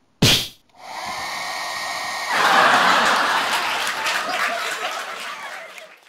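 Handheld hot-air brush hair dryer: a short loud blast about a quarter second in, then the motor and airflow running steadily with a thin whine, turning louder and more rushing about two seconds in before cutting off at the end.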